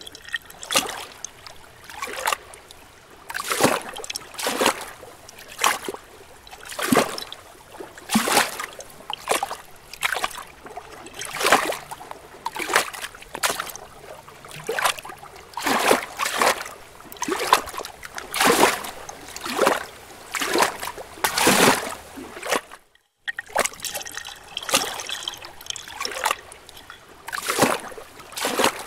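Pool water splashing and sloshing against a waterproof camera housing held at the surface, in repeated surges about once a second. The sound cuts out briefly about three-quarters of the way through.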